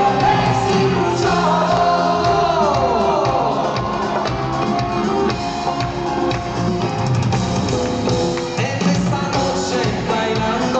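A band playing a pop song live, with drum kit and guitar, and a voice singing over it.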